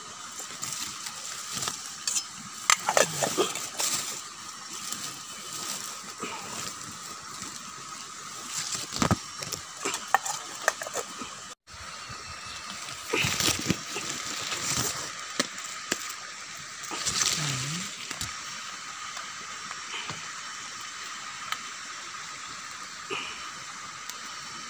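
Pot of food boiling over a wood campfire, with fire crackle and scattered clicks and knocks from the fire and the pot.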